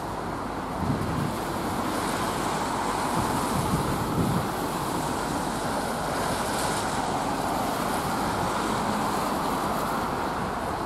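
LNER Class 43 HST diesel power car passing on the line: a steady mix of engine and wheel noise, with wind on the microphone.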